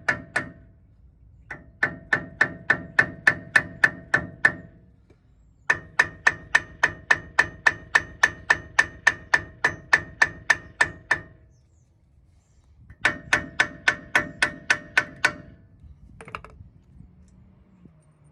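Hammer tapping rapidly on the metal front hub assembly of a 1996 Toyota T100, about four ringing strikes a second in three runs with short pauses between, to knock pressed-in parts loose.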